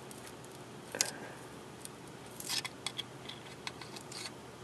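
Metal pick tool prying at a desoldered chip on a circuit board: a few light clicks and ticks, with a short scrape about halfway through.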